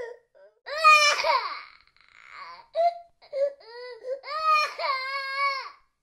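Young child crying: a loud wail about a second in, a few short sobbing cries, then a long held wail near the end, with brief silent gaps between them.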